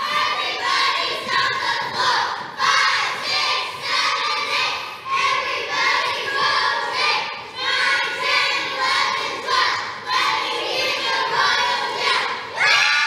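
A large group of children performing a rhythmic team cheer in unison, with a louder shout near the end.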